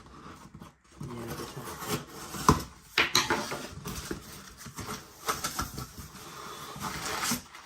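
A parcel being opened by hand: packaging rustling and crinkling, with scattered irregular clicks and knocks.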